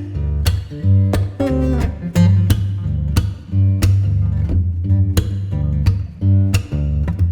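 Background music led by guitar, with plucked notes over a steady bass and a regular beat.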